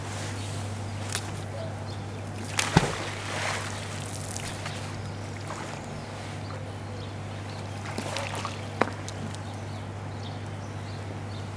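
A magnet-fishing magnet and rope working the canal water. There is a sharp crack and a splash about three seconds in, then water sloshing and dripping as the magnet is hauled out about eight seconds in, with one sharp click.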